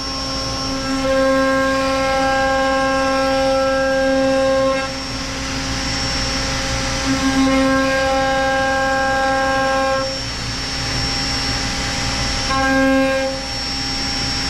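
ShopSabre PRO408 CNC router running a job, its spindle bit carving into a wooden board: a steady pitched whine whose tone drops out and comes back every few seconds. Underneath is a constant rush from the dust collection and vacuum hold-down.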